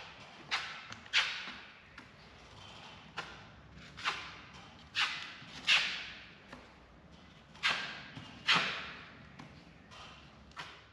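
Steel putty knife scraping and spreading joint compound on plasterboard, in about eight short, separate scraping strokes with pauses between.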